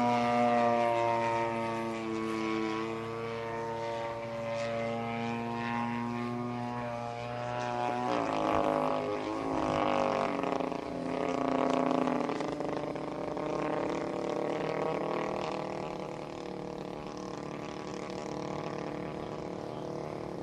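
Yak-54 aerobatic plane's propeller engine running in flight overhead. Its pitch drifts slowly down, then shifts and sweeps up and down about eight seconds in as the plane manoeuvres. It grows fainter near the end.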